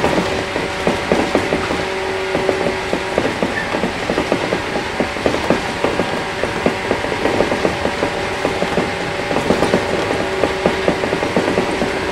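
Onboard running sound of a JR 115 series 1000-subseries electric train at speed: a steady hum from its MT54 traction motors under a dense, continuous rattle of wheels, bogies and car body.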